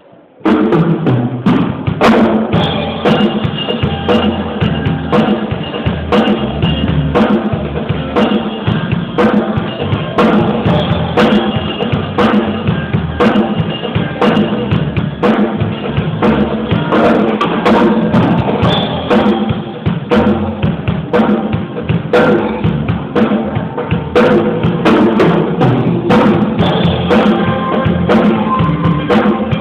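Worship band music driven by a drum kit with kick and snare, starting suddenly about half a second in.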